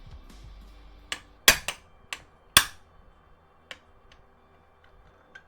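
Hammer blows on a hard drive being taken apart, to knock a part loose. There are five sharp strikes in quick succession about a second in, then two lighter taps later on.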